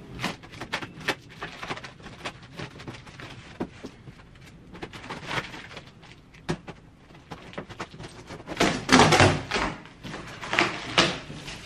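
Scissors snipping and slicing through packing tape on a large cardboard box, a quick run of short sharp cuts. Then the cardboard is handled and knocked, with the loudest rustle and thump about nine seconds in and more near the end.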